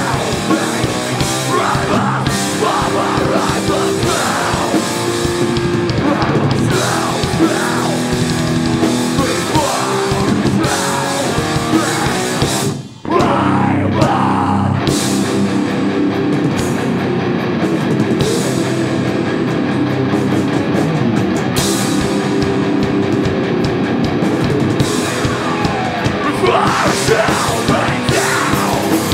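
Hardcore punk band playing live: distorted electric guitars, bass and drums with shouted vocals. About halfway through the band stops dead for a split second, then crashes back in.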